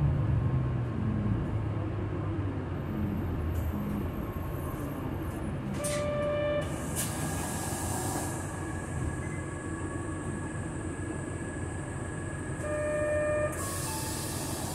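Inside a city bus as it slows and stands: engine rumble fades in the first few seconds, then a steady high whine, two short beeps about six seconds apart, and two brief bursts of high hiss.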